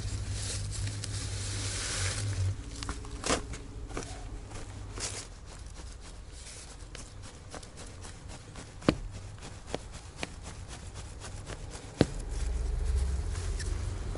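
Digging in loose garden soil strewn with dry leaves: soil and leaves crunching and rustling, with scattered small clicks and two louder sharp knocks in the second half.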